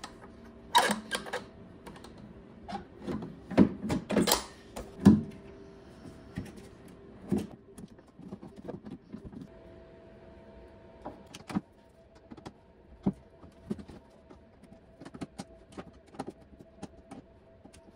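Knocks and clicks of a hard plastic motorcycle saddlebag and its metal lid hinge being handled and fitted together, with a few sharp, louder knocks in the first five seconds and lighter, quicker ticks later as a screw is worked with a folding hex-key tool.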